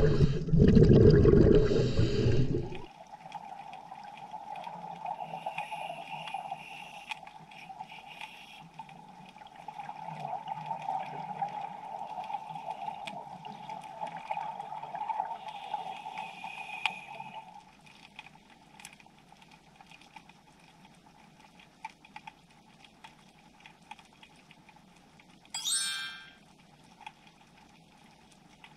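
Underwater sound: a loud bubbling rush for the first few seconds, then quieter underwater ambience with faint scattered crackling clicks, and one short burst of bubbling near the end.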